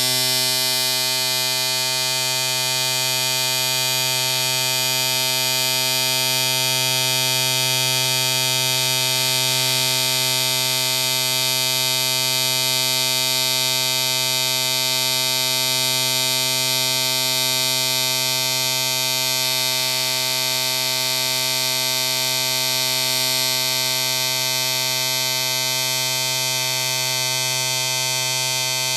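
Electric shaver running with a steady buzz.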